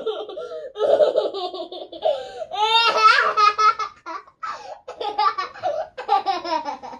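A young girl laughing in repeated bursts, one rising to a higher squeal about three seconds in.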